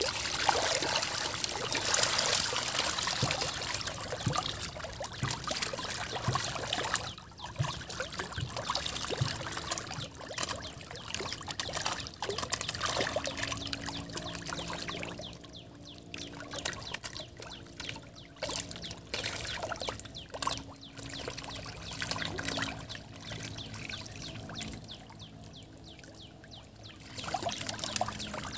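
Catfish splashing and thrashing at the pond surface as they take feed in a frenzy, a sign they are eating eagerly. It is busiest and loudest over the first several seconds, then grows patchier and fainter as the feeding calms.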